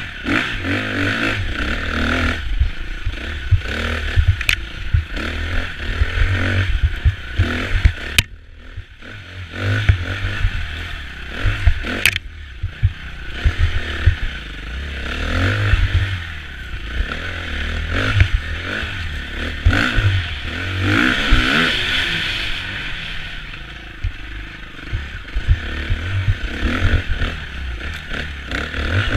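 KTM 350 EXC-F four-stroke single-cylinder enduro bike ridden through forest single track, the engine rising and falling with the throttle and easing off briefly about eight seconds in. Sharp knocks and scraping of branches and ground against the bike come through now and then, all heard from a helmet-mounted camera.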